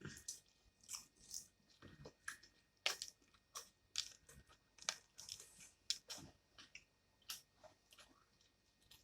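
A person biting into and chewing crisp fried shrimp close to the microphone: an irregular run of sharp crunches and wet chewing clicks, several a second.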